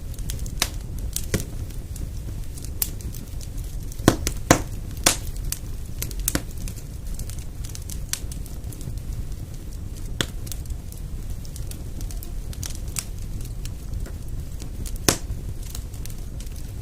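Wood fire burning in a fireplace: a steady low rumble of flames with irregular sharp crackles and pops, a few louder snaps about four to five seconds in and again near the end.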